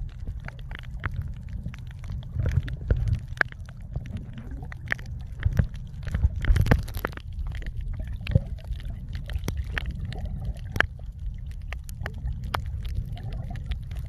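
Underwater sound picked up by a camera held in shallow reef water: a low rumbling wash of moving water with many scattered sharp clicks and crackles. There is a louder gurgling swell about six to seven seconds in.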